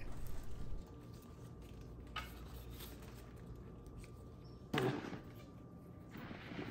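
Quiet room tone with faint handling noises: a small tick about two seconds in, a short soft knock just before five seconds, and a rustle near the end.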